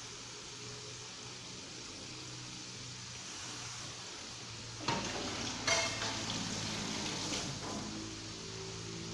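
Fish balls and fish cake frying in chilli paste in a wok, a steady sizzle. About five seconds in come a few short, sharp clatters with a metallic ring, the loudest a little before six seconds.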